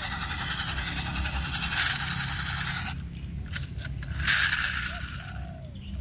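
Electronic engine sound effect from a toy V-22 Osprey tiltrotor model: a steady buzzing hum that cuts off suddenly about three seconds in. A few clicks and a short hissing burst follow.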